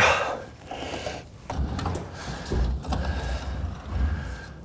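Handling noise of a car's steel fuel tank and its lines being worked loose. A loud scrape falling in pitch opens it, followed by irregular low knocks and rubbing.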